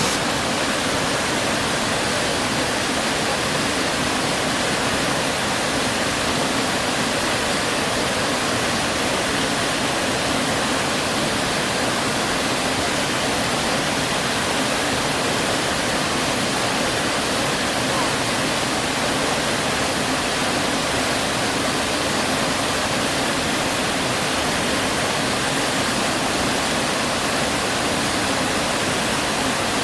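Waterfall water rushing steadily, with no change throughout.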